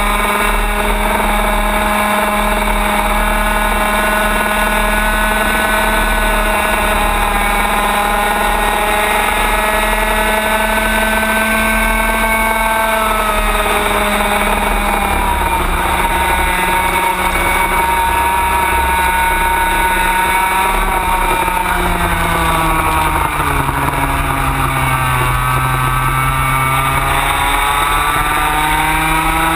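Racing kart engine running at speed, heard on board. Its pitch drifts and dips twice as the engine speed falls, the deeper dip coming about three-quarters of the way through, then rises again as the kart accelerates. A low rumble runs under it.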